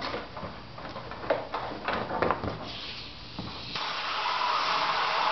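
A few sharp knocks and scrapes on the fiberglass mold, then a compressed-air blow gun hissing steadily into the mold seam to force it off the plug, the hiss growing louder about four seconds in.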